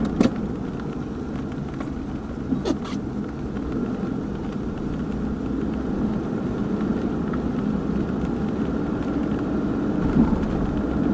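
Car being driven, steady road and engine rumble heard from inside the cabin, with two brief clicks, one at the start and one between two and three seconds in.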